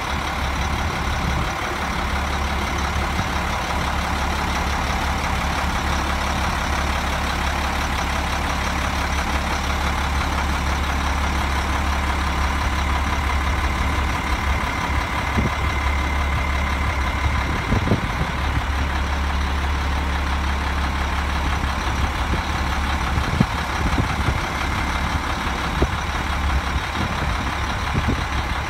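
International 2554 vacuum truck's diesel engine idling steadily, its low drone turning uneven about two-thirds of the way through, with a few light knocks in the second half.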